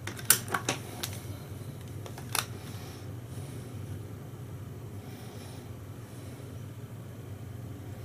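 Several sharp plastic clicks in the first second and one more at about two and a half seconds as the RJ45 plugs of a Cat5 patch cable are seated in a handheld cable tester. A steady low fan hum runs underneath.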